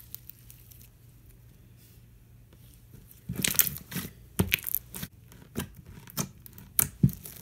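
Thick slime, stiffened with freshly added activator, being stretched and squeezed by hand, giving a string of sharp, sizzly crackles and pops starting about three seconds in.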